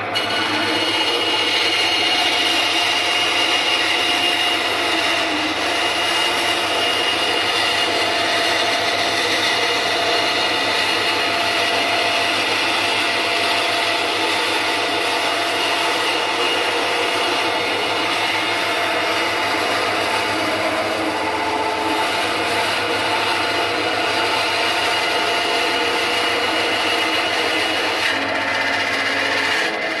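Aldi Ferrex 10-inch bandsaw running with its stock blade while ripping a thin strip off a wooden board: a steady motor hum under the hiss of the blade cutting through the wood.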